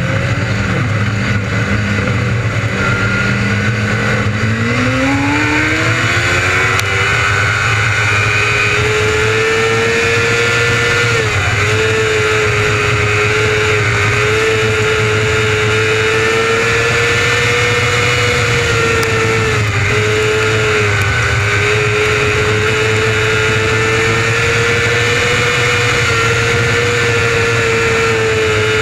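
600cc restricted micro sprint race engine revving up from low revs a few seconds in, then held at high revs, with two brief dips in pitch partway through.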